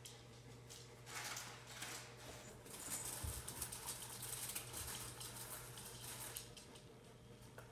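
Cat pawing and batting at a sisal-rope scratching post toy on carpet: soft, irregular scratching and rustling in bursts.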